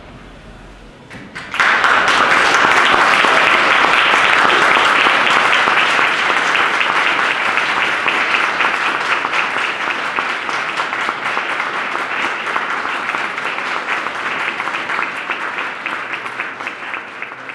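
Audience applauding, breaking out suddenly about a second and a half in and slowly dying down near the end.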